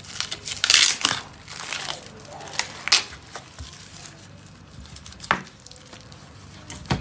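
Plastic cling film being torn and crinkled off a tray of raw chicken, loudest about a second in and dying away by about two seconds, followed by a sharp click and a couple of short knocks.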